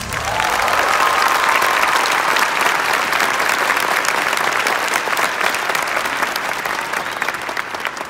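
Theatre audience applauding, a dense steady clapping that fades away near the end.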